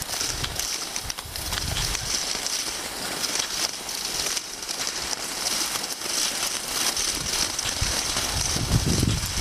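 Skis sliding over packed snow, a continuous crackling hiss, as two mastiffs tow the skier. A few low rumbles come in near the end.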